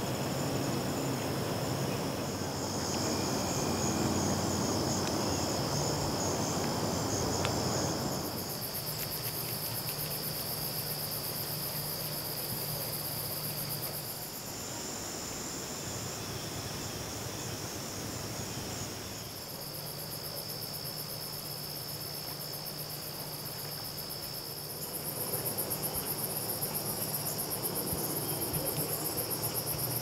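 A chorus of insects, crickets among them, trilling steadily, with a faster, very high pulsing chirp that comes in and drops out a few times. A broad rushing background noise sits under the insects for about the first eight seconds.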